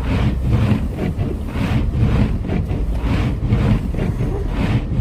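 Car driving through a blizzard: a steady low road and engine rumble under gusting wind noise that swells and fades about once a second.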